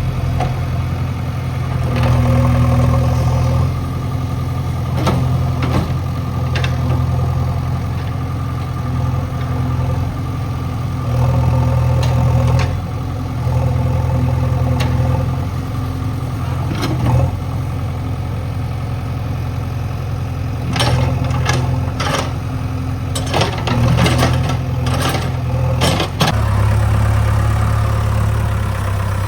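JCB 3DX backhoe loader's diesel engine running as it works, its note stepping up and down several times and dropping lower near the end. A run of sharp knocks and clatters comes about two-thirds of the way through.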